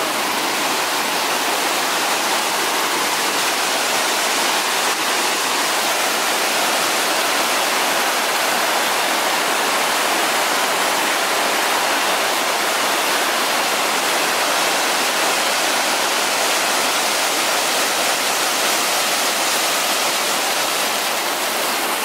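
Waterfall cascading down rock ledges and rushing through channels between boulders: a steady, unbroken rush of water, bright with little low rumble.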